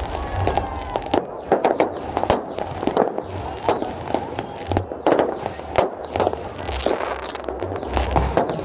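Aerial fireworks bursting overhead: many sharp bangs in quick, irregular succession.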